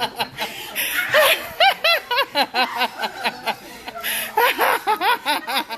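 Several people laughing, one voice breaking into a quick run of short laughs about one and a half to two seconds in.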